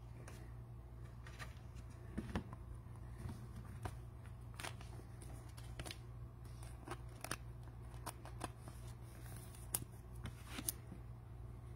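Trading cards and clear plastic card sleeves being handled: scattered light clicks, slides and rustles, over a steady low hum.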